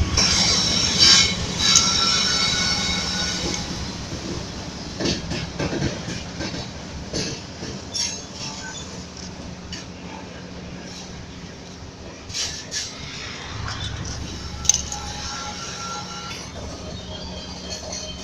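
Freight train led by a BNSF GE ES44C4 diesel-electric locomotive rolling in slowly on arrival. High steel-wheel squeal in the first few seconds gives way to scattered metallic clanks and clinks from the cars over a steady low engine hum.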